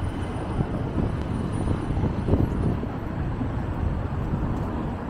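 Steady city street noise, mostly road traffic, heavy in the low end, with one brief louder moment a little over two seconds in.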